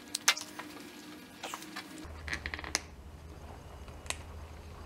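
Sharp clicks and small taps of an old inline fuel filter being worked open by hand over a shop rag. A quick run of clicks comes a little past halfway.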